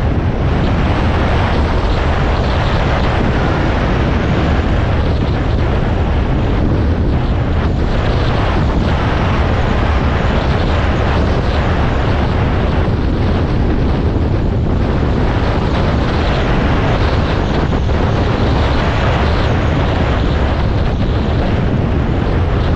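Dual-sport motorcycle engine running steadily at cruising speed on a gravel road, with wind rushing over the microphone and tyres on loose gravel.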